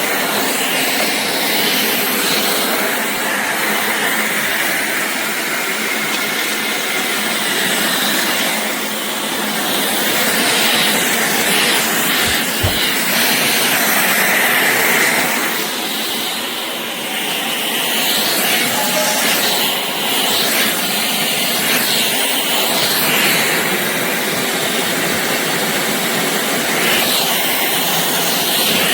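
Shark cordless stick vacuum running, a steady loud rush of motor and air, dipping briefly about two-thirds of the way through.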